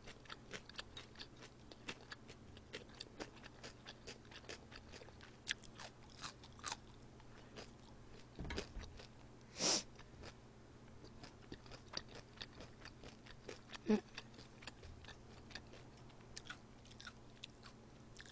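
Soft eating sounds from someone eating udon: chewing and mouth noises with many small clicks, and chopsticks and a ladle tapping against the bowl and pot. A brief louder sound comes about ten seconds in.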